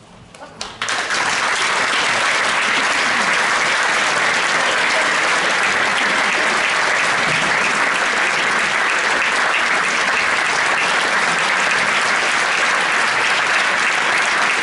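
Audience applauding: a few scattered claps, swelling into full, steady applause about a second in.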